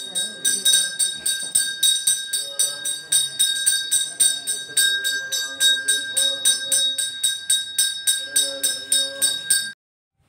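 Temple bell rung rapidly and evenly during the puja, about four strikes a second, its high ringing held between strikes, with a lower wavering tune underneath. It cuts off abruptly near the end.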